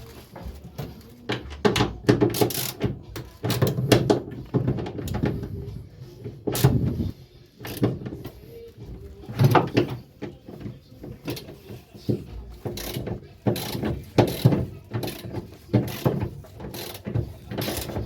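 Irregular metallic clicks and clunks from work on a Mk4 Golf gear selector mechanism as it is fitted and worked.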